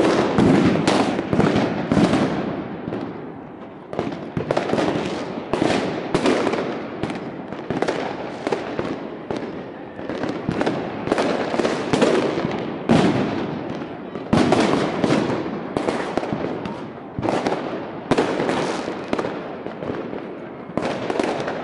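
Fireworks and firecrackers going off all around in a dense, irregular barrage: many sharp bangs a second with no let-up, each trailing an echo.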